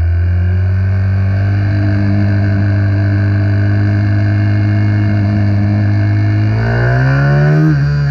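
Small single-cylinder four-stroke minibike engine running under load, its pitch climbing slowly, then rising sharply about seven seconds in and falling back just before the end.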